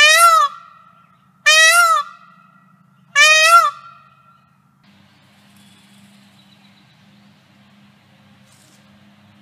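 Indian peafowl (peacock) giving three loud wailing calls, each about half a second long and about a second and a half apart, each rising then falling in pitch.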